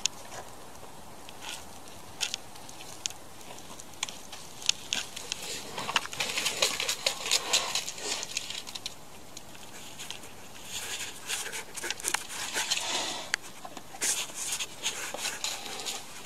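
Scattered clicks and rustling as a black bear cub and a cat move through forest litter, then a dense run of scratching in the last few seconds as the cub claws its way up a pine trunk.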